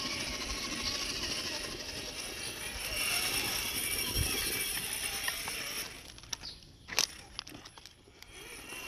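Electric drive motor and geared drivetrain of a 1/10-scale RC rock crawler whining as it drives, stopping about six seconds in. A sharp click follows about a second later, then a few faint clicks, and the whine picks up again near the end.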